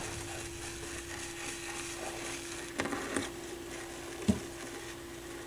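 Dual CS 530 belt-drive turntable being handled while it runs: a faint steady hum, light clicks near the middle and one soft knock a little later.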